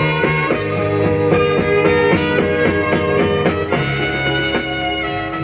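Instrumental passage of a 1970 Latin pop ballad: a melody over a steady beat and bass line, with no voice.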